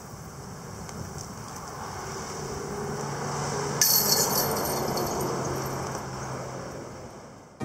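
Disc golf disc striking the chains of a basket about four seconds in: a brief bright metallic jingle over steady outdoor background noise that swells and fades.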